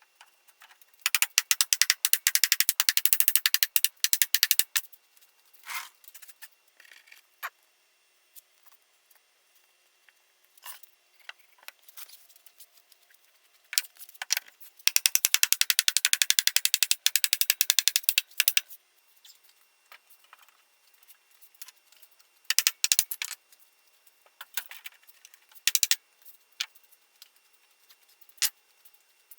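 A hand tool working wood: two bursts of rapid, scratchy strokes about four seconds each, with scattered light taps and clicks between them.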